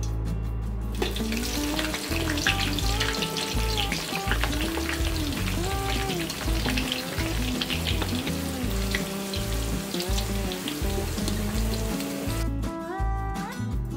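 Green pepper pieces deep-frying in hot oil in a wok, a steady sizzle that starts about a second in and stops shortly before the end, with background music underneath.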